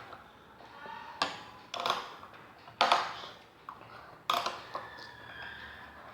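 Spoons clinking and scraping against ice cream cups: a few sharp knocks, roughly one a second, each with a short scrape after it.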